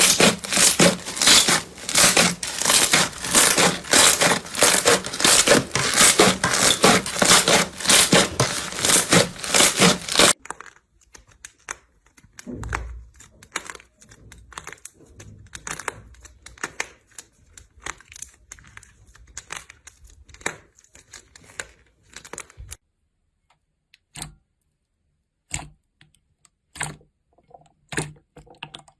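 Slime worked by hand, crackling and popping: a dense, loud run of fast crackles for about ten seconds, then it changes abruptly to quieter, scattered clicks and pops, thinning to a few single pops over the last six seconds.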